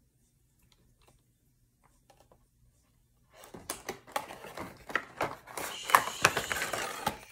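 Action-figure packaging being opened: a few faint ticks, then from about three seconds in a dense crackling and rustling of the cardboard box and its clear plastic tray as they are handled.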